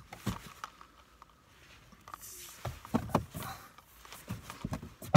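Rustling of a nylon jacket with scattered soft knocks and clicks as a person shifts about in a car seat, and one sharp click near the end.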